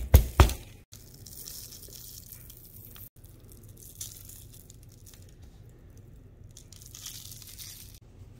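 A hand patting a raw pork chop down onto parchment paper, four quick wet slaps right at the start, then faint crinkling of the parchment as the spice rub is worked into the meat and the chop is turned.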